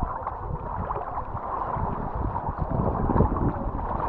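Outdoor beach ambience: steady rushing noise with irregular low rumbles, like wind on the microphone.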